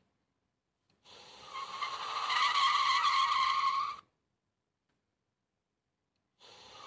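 A played-back sound clip: a sustained high screech that starts about a second in, builds up over about three seconds, and cuts off abruptly. A second similar screech starts near the end.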